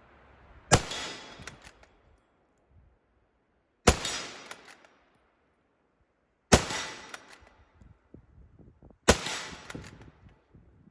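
Swedish M96 Mauser bolt-action rifle in 6.5x55 firing four single shots roughly two and a half to three seconds apart, each echoing briefly and followed by small clicks.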